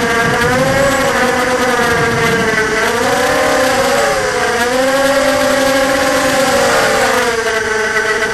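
ZMR250 racing quadcopter's brushless motors spinning 5-inch KingKong 5040 props on a 4S battery, heard from the onboard camera: a steady loud buzzing whine whose pitch dips and rises with throttle as it banks through turns.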